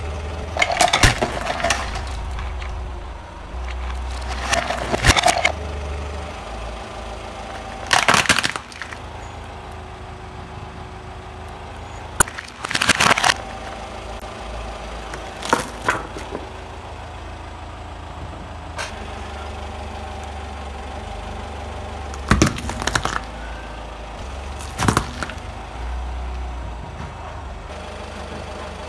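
A car tyre rolling onto plastic toys and crushing them: a series of separate loud cracks and crunches, about seven in all, over a steady low rumble.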